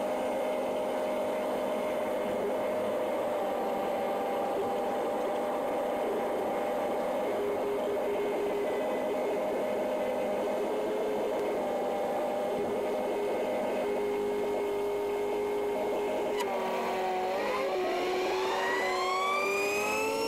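Magni M24 gyroplane's engine running steadily while taxiing, thin with no low end. In the last few seconds its pitch rises smoothly as the engine speeds up.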